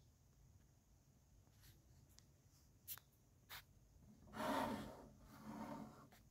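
A plastic Lego model being turned by hand on a table: two light clicks, then two scratchy rubbing passes as the brick-built feet slide across the tabletop.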